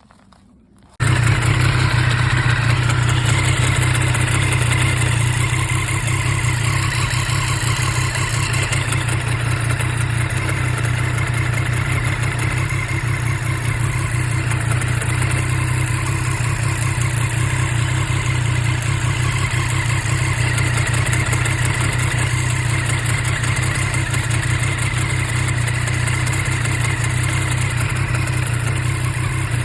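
Triumph Street Triple RS 765's three-cylinder engine idling steadily in neutral, with the grinding noise at idle that goes away when the clutch lever is pulled; the owner suspects a clutch fault.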